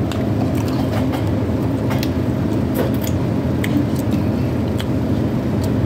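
Steady low hum and rumble of restaurant room noise, with scattered small clicks and taps.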